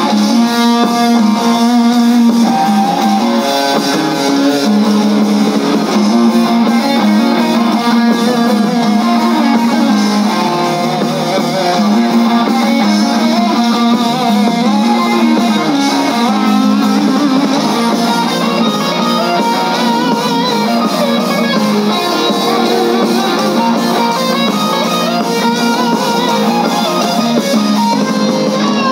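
Live rock band playing loud, with electric guitars leading. The sound is thin in the bass.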